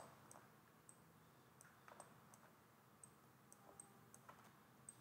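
Faint, irregular clicks of a computer mouse, a few each second, with a sharper click right at the start, over near-silent room tone.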